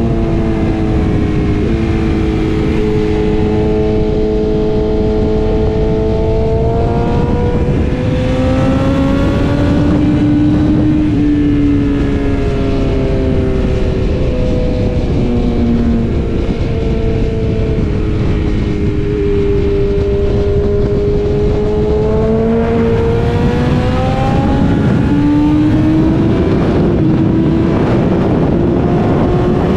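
BMW S1000RR's inline-four engine pulling hard at highway speed, its pitch climbing and dropping several times as the bike accelerates through the gears, over heavy wind rush on the microphone.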